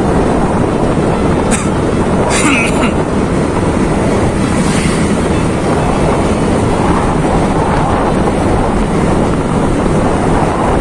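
Motorbike riding along a road: steady engine hum mixed with wind rushing over the microphone, with two brief clicks about two seconds in.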